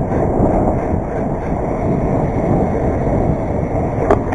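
Steady wind and road rumble on a GoPro in a waterproof case mounted on a BMX bike rolling along asphalt, with one sharp click about four seconds in.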